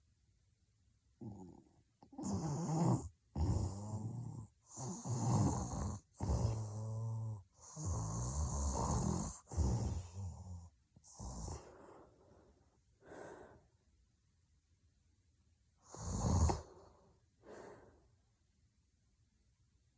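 A sleeping woman snoring heavily: a run of about six loud, rasping snores close together, then a few fainter breaths. After a short pause comes one more loud snore near the end.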